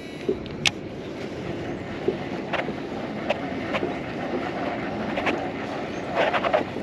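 Wind buffeting the microphone and water moving against a fishing kayak's hull, a steady rushing noise, with scattered light knocks and clicks.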